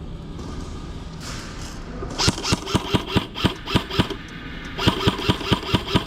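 Airsoft gun firing two strings of rapid shots, about four or five a second, with a short pause between them.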